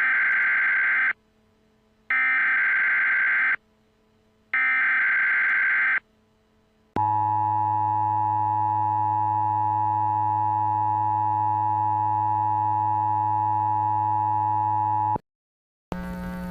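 Emergency Alert System header: three bursts of SAME digital data tones, then the two-tone EAS attention signal, held steady for about eight seconds before it cuts off. A low hum comes in near the end.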